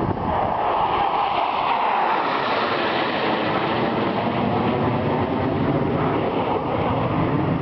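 Thunderbirds F-16 jet roaring: a loud, steady rushing noise that slides slightly down in pitch in the first couple of seconds.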